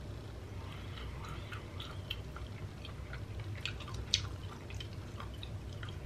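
Slow, close-up chewing of a piece of butter-grilled abalone: soft wet mouth clicks and smacks scattered throughout, a few sharper ones around the middle, over a low steady hum.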